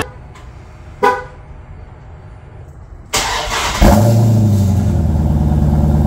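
Dodge Challenger 1320 Scat Pack's 392 (6.4-litre) HEMI V8 remote-started from the key fob: a short horn chirp about a second in, then the starter cranks around three seconds in and the engine catches with a rev near four seconds before settling into a steady idle.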